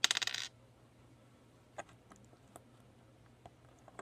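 A loud, very rapid clicking rattle lasting about half a second at the start, then a few light separate clicks and taps of plastic Lego pieces being handled.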